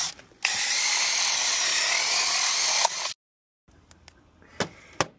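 Cordless drill with a hole cutter running for about two and a half seconds as it bores a cable-entry hole in a plastic isolator enclosure, then stopping. A couple of faint clicks follow near the end.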